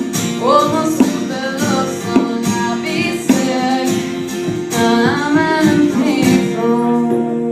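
A voice singing a song with guitar accompaniment.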